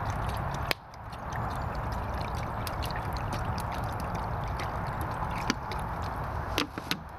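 Water pouring from a plastic bottle into a small metal pot, a steady splashing stream with a brief break about a second in. A few sharp clicks near the end as the pouring stops.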